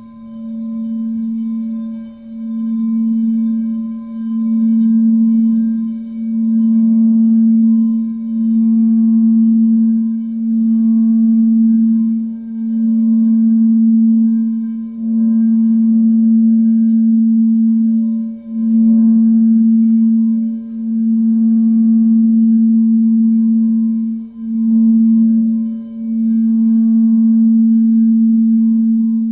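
Singing bowl sustaining one steady low tone with faint higher overtones. The tone swells and dips about every two to three seconds.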